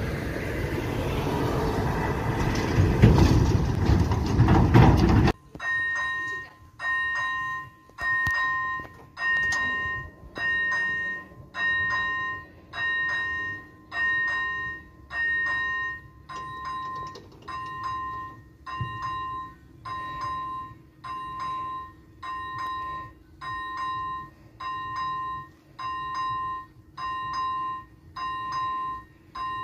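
Electronic warning bell of a Czech railway level crossing dinging about once a second as the barriers stand lowered and the red light flashes. It follows about five seconds of loud rushing noise that stops abruptly.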